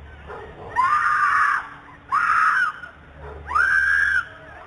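A young woman screaming in distress, three long, loud screams a little over a second apart, heard as street audio from a doorbell camera recording.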